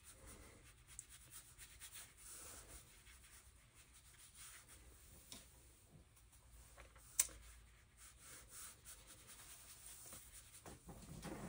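Faint soft scratching of a watercolour brush stroking across paper. One sharp click about seven seconds in.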